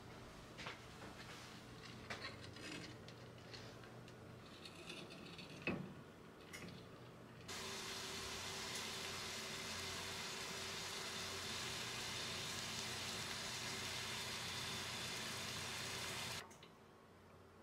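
Water simmering in a frying pan used as a hot-water bath to melt beeswax in a stainless steel cup: a steady hiss starts abruptly about seven seconds in and cuts off near the end. Before it there are faint light clicks and a single knock about six seconds in.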